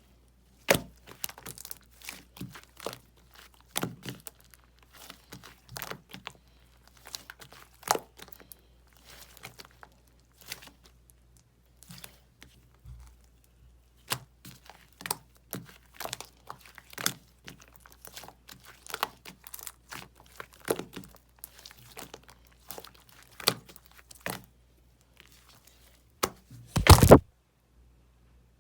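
Slime being kneaded, stretched and pressed by hand, giving irregular sharp clicks, pops and crackles from trapped air. Near the end, a louder, longer burst of crackling.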